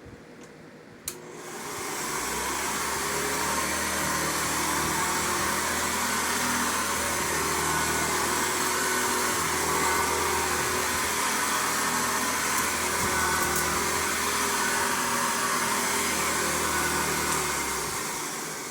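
Hoover Convertible 1060 upright vacuum cleaner switched on with a click about a second in, spinning up quickly and then running steadily before being switched off and winding down near the end. The motor sounds a little off, which the owner puts down to a carbon brush that has not yet seated in, not to the bearings.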